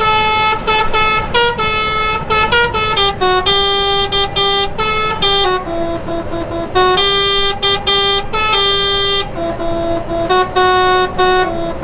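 A lorry's telolet horn playing a tune: a run of loud horn notes, some short and some held, stepping up and down in pitch with brief breaks between them.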